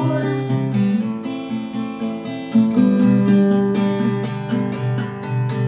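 Cutaway acoustic guitar strummed in a steady chord rhythm, with no singing, the chords picking up firmly again about two and a half seconds in.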